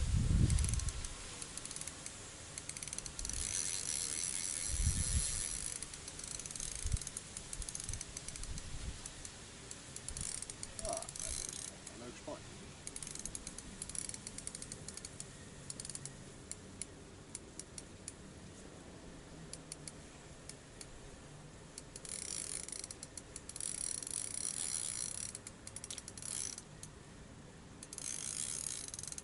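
Fishing reel being wound in several spells, its gears giving a fast, fine clicking whirr, with pauses between.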